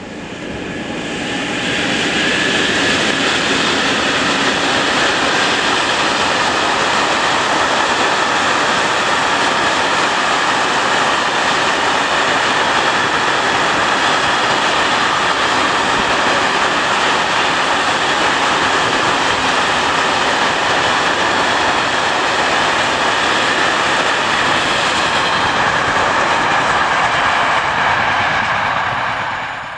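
A long freight train rolling past, a steady rush of wagon wheels on the rails. It swells over the first two seconds, holds steady, and falls away sharply at the very end.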